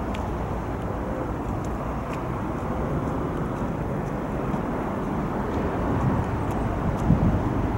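Wind buffeting the camcorder's microphone, a steady low rumble with stronger gusts near the end.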